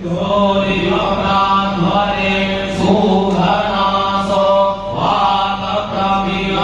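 Sanskrit mantras chanted by batuks (young Vedic students) on a steady, held pitch, in long phrases with short breaks for breath.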